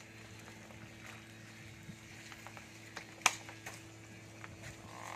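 Quiet cow-shed background: a steady low hum with scattered light clicks and one sharp knock about three seconds in.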